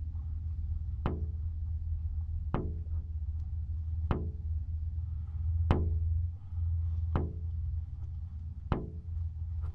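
Sparse music: a single struck, ringing note repeats evenly about every second and a half over a steady low rumble.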